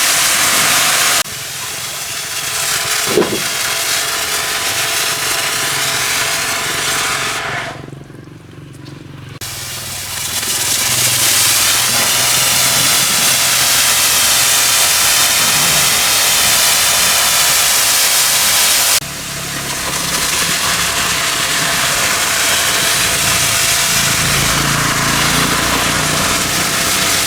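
High-pressure washer spraying with a steady loud hiss, the pump running under it. The spray drops in level about a second in, nearly stops for a couple of seconds around a third of the way through, then comes back at full strength and eases again about two-thirds through.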